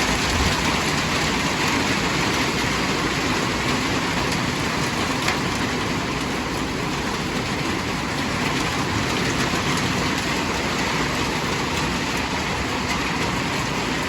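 Steady, loud downpour of a storm: heavy rain driven by strong wind.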